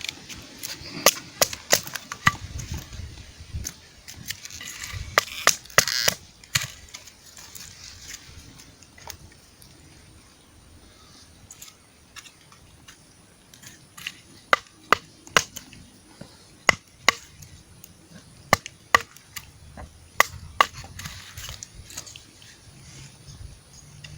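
Wood being chopped at camp: sharp, irregular knocks and cracks in clusters, with a quieter pause in the middle.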